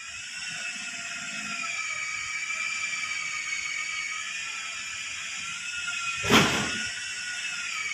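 A steady high-pitched whine, wavering slightly in pitch, over a faint hiss, with one sudden thump about six seconds in.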